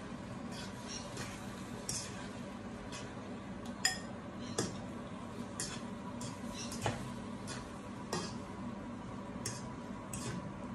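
Metal fork stirring beaten egg and sliced bitter melon in a nonstick frying pan, clicking and scraping against the pan at irregular moments, the sharpest knock about four seconds in. A steady low hum runs underneath.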